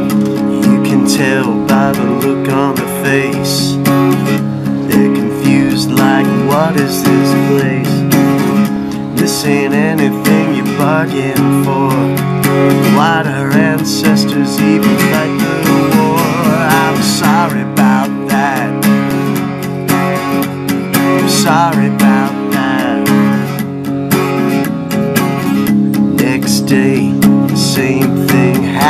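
Acoustic guitar being strummed and picked, playing a song's instrumental opening.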